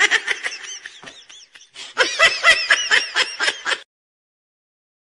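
Laughter in quick repeated pulses, softer at first and then stronger about two seconds in, cutting off suddenly just before four seconds in.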